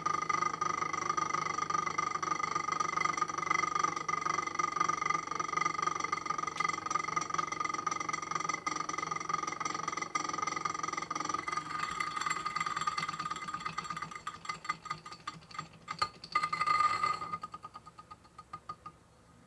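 Wiz-z-z-er friction-wound spinning top whirring on a hard surface with a steady tone. About twelve seconds in it begins to rattle as it slows and wobbles. A loud clatter comes at about sixteen seconds, the whir stops, and it rattles and rocks to a rest.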